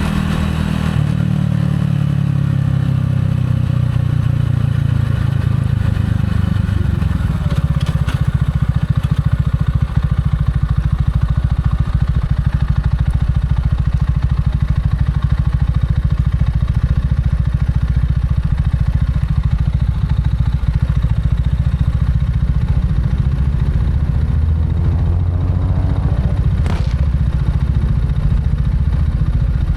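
Gilera AC4 motorcycle engine on the move. Its note falls over the first few seconds, then it runs steadily, shifting pitch again near the end, with a short sharp click there.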